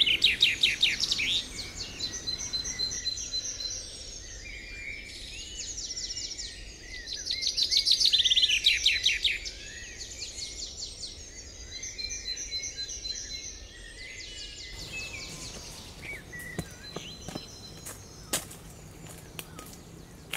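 Wild birds singing: a loud, fast trilling call at the start and again about seven seconds later, with runs of steady high chirps between. It grows quieter in the second half, with a few sharp clicks or knocks near the end.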